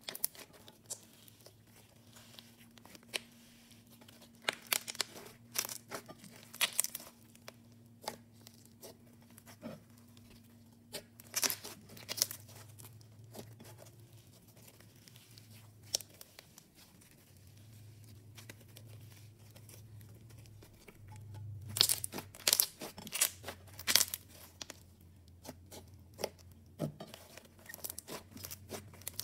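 Thick fluffy slime being kneaded and squeezed by hand, giving scattered sticky crackles, bubble pops and crunches. They come thickest about 11 seconds in and again from about 21 to 25 seconds in.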